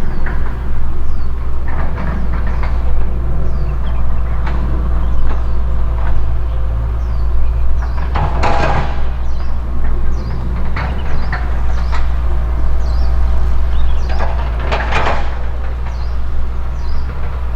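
Outdoor ambience dominated by a steady low rumble, with small bird chirps scattered through it. Two louder rushing swells come about eight and fifteen seconds in.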